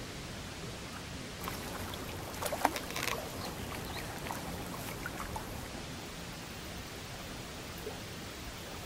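Lake water lapping against shoreline rocks, a steady rushing hiss, with a few light clicks and knocks about two to three seconds in.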